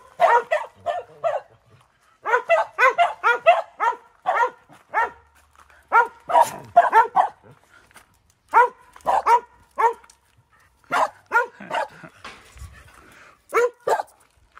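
A dog barking repeatedly in bouts of short, sharp barks, several a second, with pauses of about a second between bouts.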